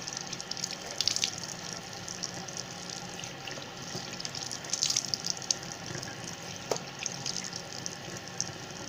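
Tap water running into a sink, with splashing as a face is rinsed of facial scrub; louder splashes come about a second in and around five seconds in.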